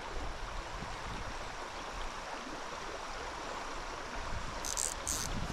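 Shallow river flowing over a rocky riffle: a steady rush of moving water. Two brief, high, hissy sounds come near the end.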